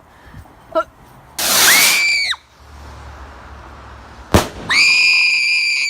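A whistling firework going off. First comes a loud hissing rush with a whistle that rises and then holds for about a second. A couple of seconds later there is a sharp bang, followed by a steady high-pitched whistle.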